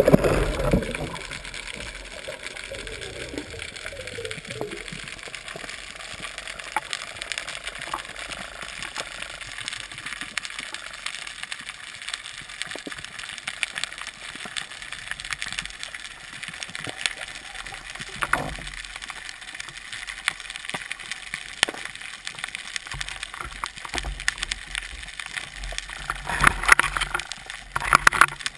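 Underwater ambience picked up by a camera in its housing: a steady crackle of tiny clicks over a low rush of water, with a loud rush of water at the start and a few more louder swishes, the strongest near the end.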